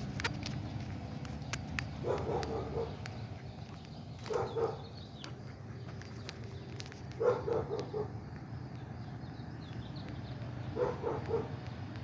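An animal calling in four short bouts, each a quick series of a few harsh notes, about two to three seconds apart.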